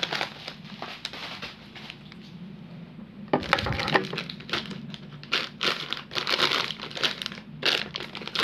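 Plastic pouches and wrapping crinkling and rustling as they are handled, sparse for the first couple of seconds and busier from about three seconds in. A dull low thump sounds at about three and a half seconds.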